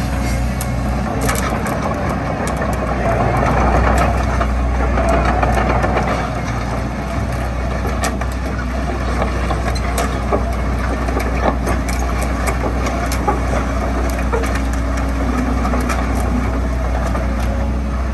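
Sumitomo SH130 hydraulic excavator's diesel engine running steadily while the boom and arm are worked and the upper structure swings, louder for a few seconds near the start. Occasional short clicks and knocks sound over the engine.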